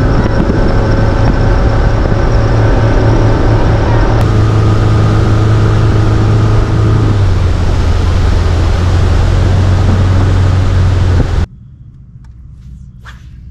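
Bass boat's outboard motor running at speed, loud and steady with a rushing hiss, its pitch dropping slightly partway through. It cuts off abruptly near the end, leaving quiet with a few faint clicks.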